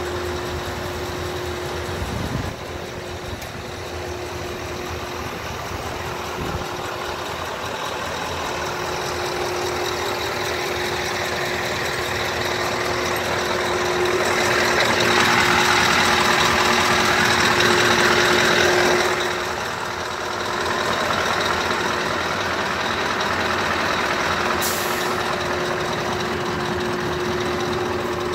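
Scania R620's V8 diesel idling steadily, with a broad hiss that swells for several seconds midway.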